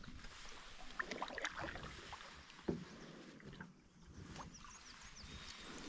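Canoe being paddled on calm water: quiet paddle strokes and drips, with a couple of soft knocks, one of them about three seconds in.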